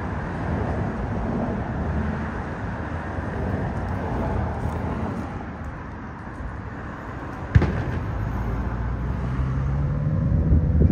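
Steady low rumble of road traffic, with one sharp click about seven and a half seconds in. Near the end, an engine hum rises slowly in pitch.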